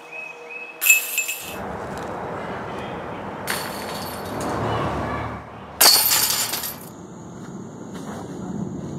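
Disc golf discs striking the metal chains of a basket: three brief jangles of rattling chain, about a second in, midway, and the loudest about six seconds in, over steady outdoor background noise.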